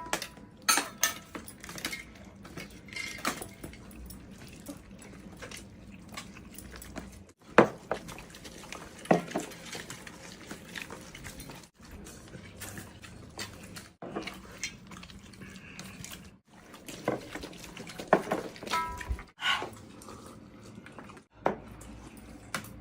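Scattered clinks, knocks and scrapes of utensils and hands on thali plates and bowls as people eat.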